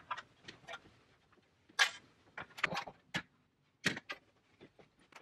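Scattered clicks and knocks as small side nightstand shelves are unhooked from a bed headboard and handled, with two louder knocks about two and four seconds in.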